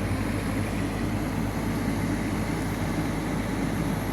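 Komatsu PC210 excavator's diesel engine running steadily with a constant low hum.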